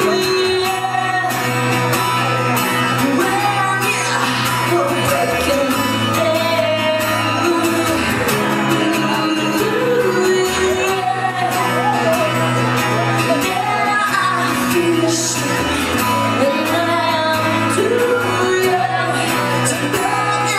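Live solo performance: a woman singing while strumming an acoustic guitar.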